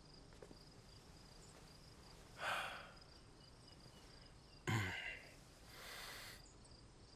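Crickets chirping steadily and faintly through a night-time quiet, with two short breathy sounds about two and a half and five seconds in.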